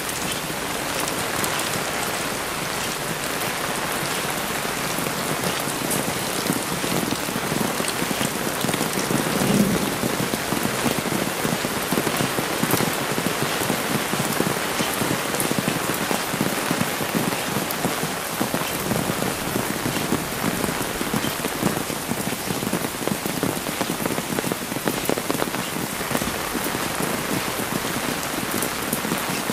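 Heavy rain falling steadily, a dense hiss dotted with sharp ticks of close drops. A brief low thump comes about ten seconds in.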